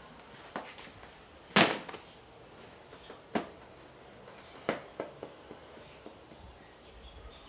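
A few short knocks and thumps of a man moving about in a small room as he puts down a bag and sits on a sofa. The loudest comes about a second and a half in, and smaller ones are spread through the rest.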